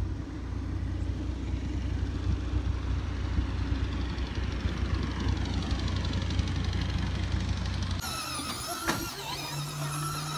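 A steady low rumble with a faint motor whine gliding in pitch above it. About eight seconds in it gives way to the high electric motor whine of a radio-controlled toy car, rising and falling with the throttle, over a steady low hum.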